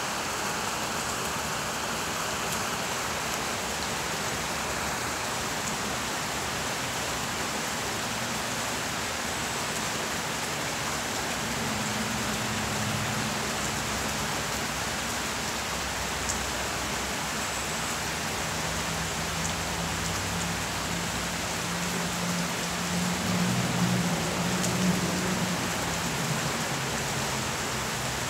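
Steady rain falling on trees, leaves and ground, a constant even hiss with a few sharper drips. A low hum swells and fades in the second half.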